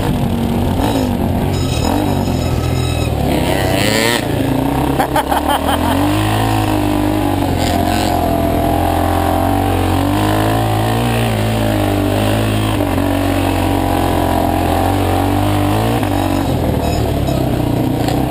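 Dirt bike engine heard from on board, running continuously with its pitch rising and falling as the throttle opens and closes along a trail. A few sharp knocks about four to five seconds in.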